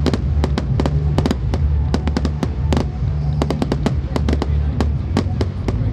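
Fireworks display: a rapid, irregular string of sharp bangs and cracks from bursting aerial shells, several a second, over a steady low rumble.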